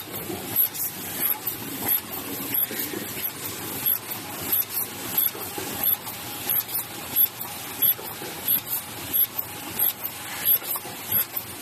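Paper cup forming machine running smoothly: a steady mechanical hiss with a regular beat about every two-thirds of a second as it cycles.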